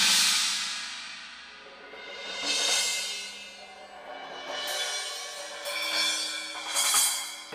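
Drum-kit cymbals played in swells: a ringing cymbal wash builds and fades several times. The loudest swells come at the start and just before the end.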